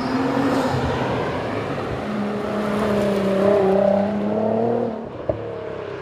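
Race car engine sound with a steady hum and wavering higher tones, falling in level about five seconds in.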